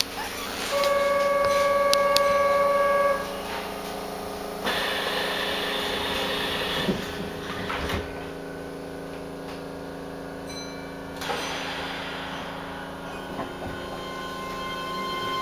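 Inside a Keihan 3000 series electric train car: a buzzer sounds steadily for about two seconds, then a rush of noise ends in a sharp knock. About eleven seconds in, the Toyo Denki IGBT-VVVF inverter comes in as a set of steady electric tones over the car's hum, growing toward the end as the train begins to run.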